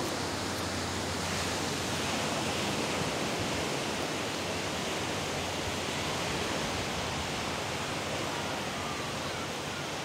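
Steady rushing hiss of ocean surf breaking and washing up a sandy beach.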